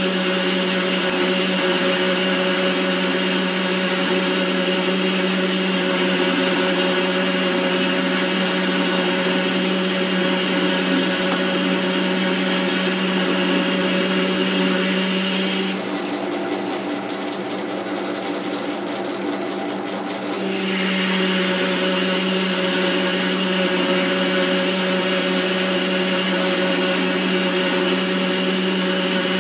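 Metal lathe running under power, its motor and gears giving a steady hum and whine while the insert tool cuts the spinning metal hub with a continuous hiss. About halfway through, the whine and the cutting hiss drop away for four or five seconds, then come back.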